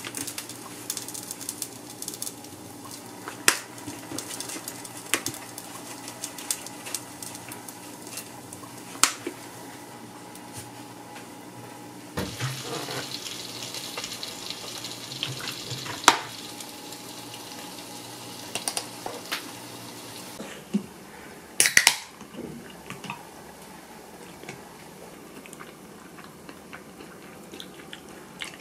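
Soy sauce poured from a plastic bottle into a small ceramic dish, a steady pouring hiss lasting several seconds midway through. Scattered clicks and taps of kitchenware come around it, the loudest a few sharp knocks in the second half.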